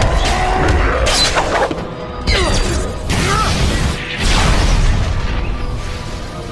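Animated action-fight soundtrack: dramatic score under booming impacts and crashes, with several sudden hits spaced a second or two apart.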